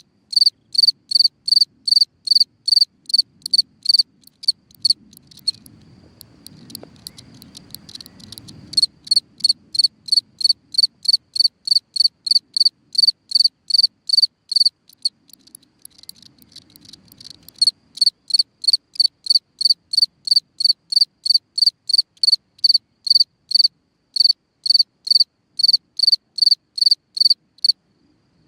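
A black ground-dwelling cricket chirping in a steady, even rhythm of about two to three high-pitched chirps a second. It falls silent twice, for about three seconds after five seconds in and for about two seconds after fifteen seconds in, while a faint low rumble is heard, then takes up its chirping again.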